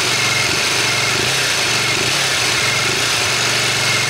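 Aprilia RX 125's single-cylinder four-stroke engine idling steadily, a touch high, running smoothly with no bad noises. A faint steady high whine sits over the idle.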